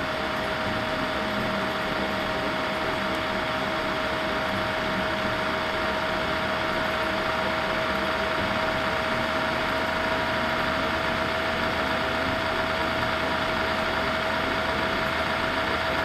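Lenovo B570e laptop's cooling fan running at speed, a steady rush of air with one held tone. It is the noisy, vibrating sealed fan that the owner sets out to lubricate.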